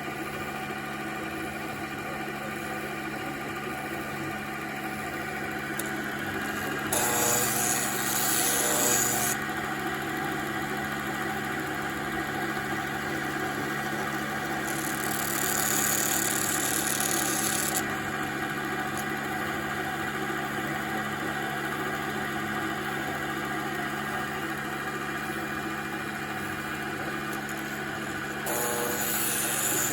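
Emco Unimat PC CNC lathe running with a steady motor hum, while its cutting tool shaves the wood of a spinning pencil in three passes of a few seconds each, heard as a louder, hissing scrape, the last beginning near the end.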